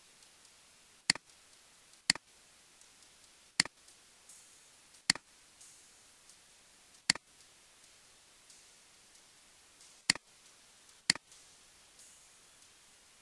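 Computer mouse button clicking: seven sharp single clicks, spaced irregularly one to three seconds apart.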